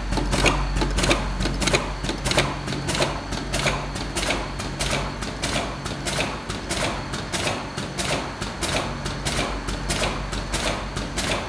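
Automatic battery-PCB soldering machine running, its mechanism making sharp, regular clicks about every half second with lighter clicks between, over a steady machine hum.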